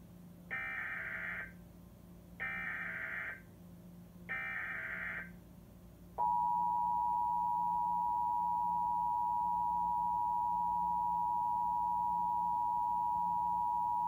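Emergency Alert System Required Monthly Test playing from a television. Three bursts of SAME digital header tones come first, about a second each and two seconds apart. About six seconds in, the EAS two-tone attention signal starts: two notes sounded together as one steady tone, held for about eight seconds, which announces the voice message of the test.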